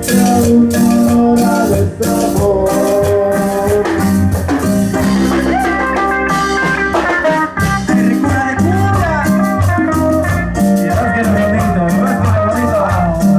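Band playing a Latin dance tune live, an electric guitar carrying the melody with bending notes over bass, drums and shakers keeping an even beat.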